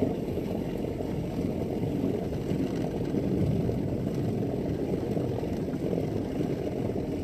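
Bass boat moving under its electric trolling motor: a steady low rushing noise with no distinct tone.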